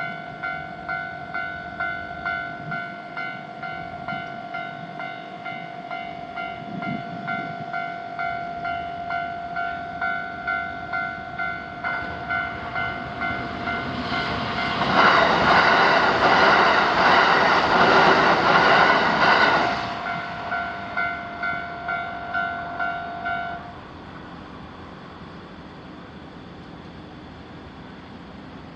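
Japanese railway level-crossing alarm ringing its electronic bell tone at about two strikes a second while a Kintetsu Nagoya Line train approaches and passes, loudest for about five seconds in the middle. The alarm stops about four-fifths of the way through, once the train has cleared.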